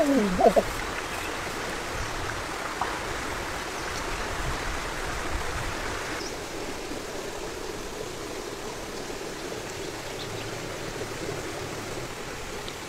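Steady rushing outdoor background noise, like running water, with a brief loud cry falling in pitch at the very start.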